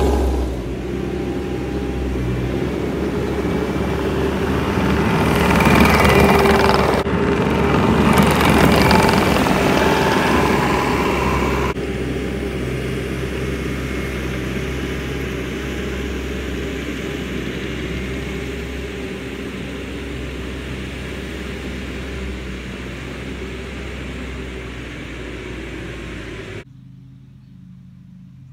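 Bobcat T650 compact track loader's diesel engine running as the machine drives about. It is loudest for several seconds, between about four and ten seconds in, and drops off suddenly near the end.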